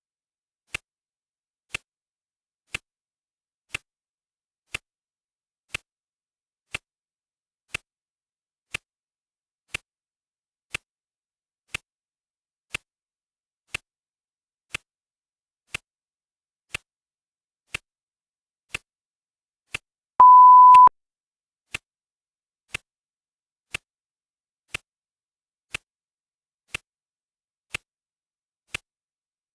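Clock ticking sound effect, one tick a second, with a single steady high beep about twenty seconds in, lasting about half a second: the timer's beep that marks each full minute of the countdown.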